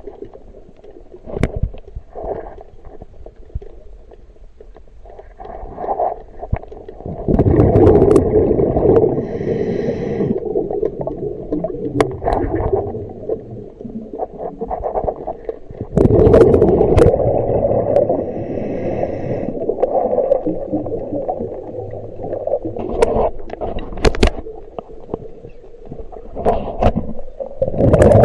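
Muffled gurgling and sloshing water that swells and eases in long stretches, with scattered sharp knocks and clicks.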